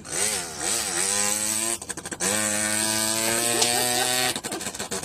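A man's vocal imitation of a Zanella 50 cc moped: two quick rising revs, a rattling sputter, a long held note that climbs slightly like the engine pulling through a gear, then another sputter.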